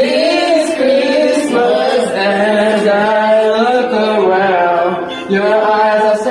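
A man singing into a handheld karaoke microphone, his voice amplified over music, with sustained notes that bend and glide. There is a short break about five seconds in.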